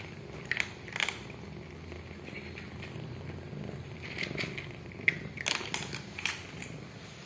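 Cats crunching dry kibble from a plastic tray, short sharp crunches about a second in and again in a cluster from about four seconds on, over a steady low purr.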